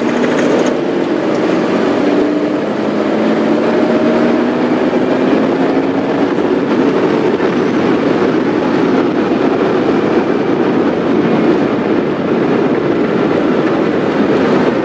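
Safari game-drive vehicle driving on a dirt track: steady engine running under a loud rumble of road and wind noise, the engine note climbing slightly over the first several seconds.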